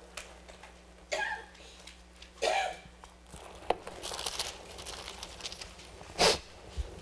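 Thin Bible pages rustling as they are leafed through and turned, in several short bursts with a longer rustle about two thirds of the way in.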